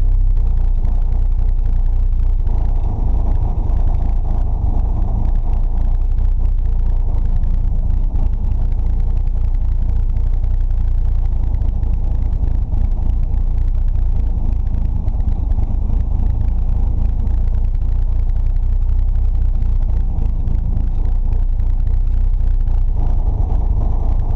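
Datsun 620 pickup's swapped KA24DE four-cylinder engine, carbureted on a Weber 38 with hot cams, idling steadily while warming up after a cold start, heard from inside the cab.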